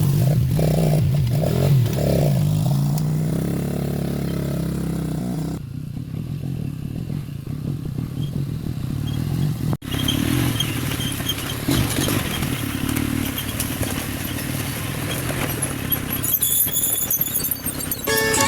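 A motor running with a steady low drone, which stops abruptly about five seconds in. A rougher, noisier stretch with scraping and clattering follows.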